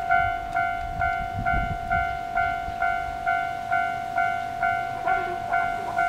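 Japanese level-crossing electronic warning bell ringing in an even, repeating ding at about two strikes a second, signalling an approaching train. A low rumble rises briefly about a second and a half in.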